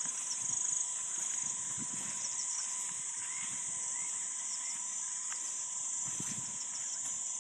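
Steady high-pitched chorus of crickets, with a few faint short chirps in the middle.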